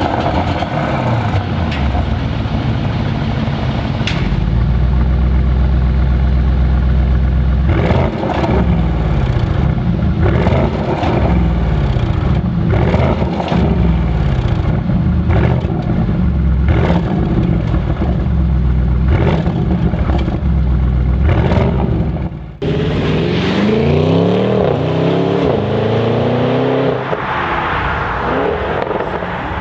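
Audi RS6 C8 twin-turbo V8 revved repeatedly while stationary, its exhaust note rising and falling about every two seconds. After an abrupt cut about three-quarters through, the car accelerates hard, the note climbing and stepping up through gear changes.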